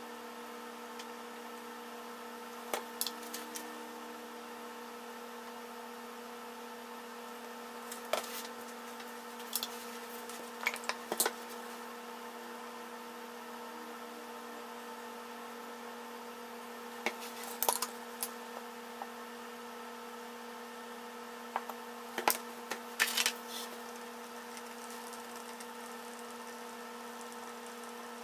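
A steady hum with several fixed pitches, with small clusters of light clicks and knocks about five times: paint bottles and cups being handled on a tabletop.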